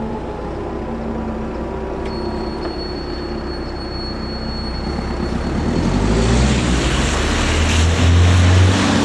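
A car drives over the level crossing and passes close by, its low tyre and engine noise swelling from about halfway through and loudest near the end. Before it, a steady low hum with faint steady tones.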